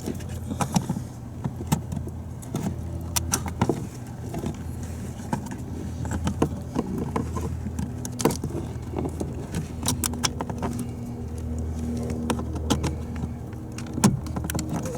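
Irregular light clicks, taps and rattles of plastic trim parts and clips being handled and fitted on a van's door panel, over a steady low hum.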